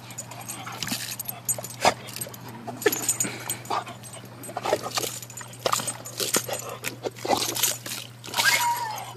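A dog whining and yipping as it bites and paws at the vinyl wall of an above-ground pool, with scattered scrapes and knocks; a longer falling whine near the end.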